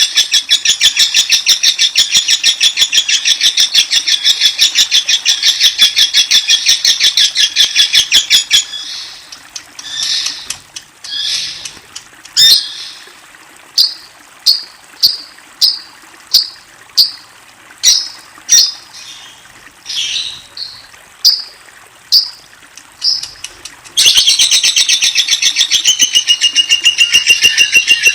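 Bar-winged prinia (ciblek) calling: a dense, very fast run of high repeated notes, breaking about eight seconds in to sparse single chirps about once a second, then the fast run starting again near the end. In the last couple of seconds a steady high whistled note joins in.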